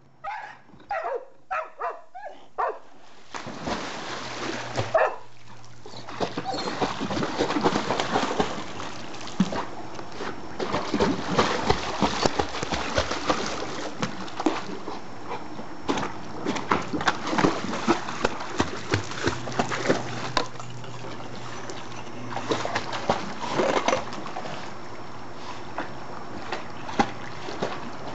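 An Entlebucher Mountain Dog barks about six times in quick succession, then splashes continuously as it paddles through a swimming pool, with frequent sharp splashes.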